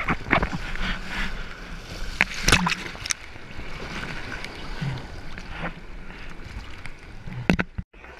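Sea water splashing and sloshing against a GoPro at the waterline on a bodyboard. Sharp slaps of water hit the housing, the loudest about two and a half seconds in and again near the end, just before the sound cuts out briefly.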